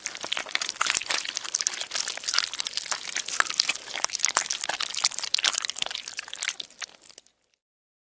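Slime being squished and worked: a continuous wet crackling of many small pops and squelches, stopping about seven seconds in.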